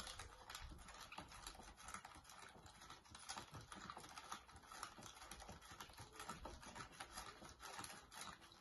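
Spoon stirring a baking soda and washing-up liquid mixture in a plastic cup: faint, quick, continuous clicking and scraping of the spoon against the cup.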